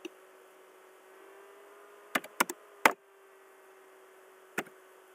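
Computer mouse clicks, sharp and short: one at the start, a quick run of four a little past the middle, and one more near the end, over a faint steady hum.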